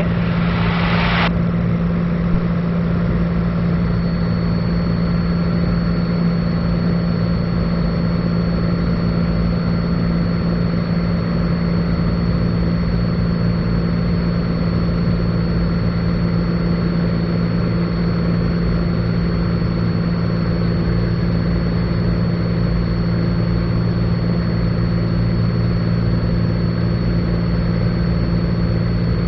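Cessna 182 Skylane's piston engine and propeller droning steadily in cruise flight, heard inside the cabin. A thin, steady high tone joins about four seconds in.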